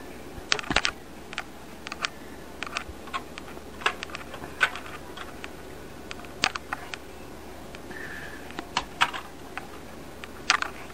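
Irregular sharp clicks and taps, about fifteen of them, some in quick pairs, over a steady low hum.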